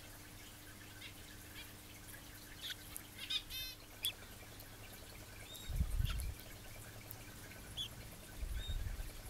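Young red canary giving short high chirps, with a quick trill a few seconds in and single small calls later. Two low dull thumps, louder than the chirps, come about six seconds in and near the end.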